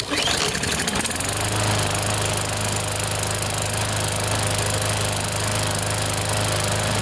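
Briggs & Stratton EX series single-cylinder push-mower engine starting and settling into steady running about a second in. It now runs on its own after the carburetor was cleaned and rebuilt to clear water-contaminated fuel, the fault behind its not staying running.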